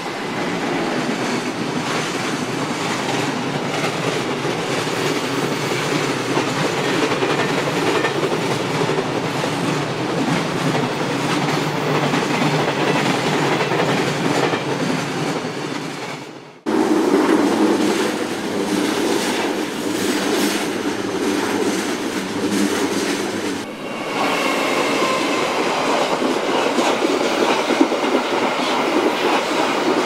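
Freight train of mostly empty container flatcars, hauled by an EF210 electric locomotive, rolling past at speed, its wheels clattering steadily over the rail joints. The sound cuts off abruptly about two-thirds of the way through and a second passing freight train of container flatcars takes over, with a faint thin wheel squeal in the last few seconds.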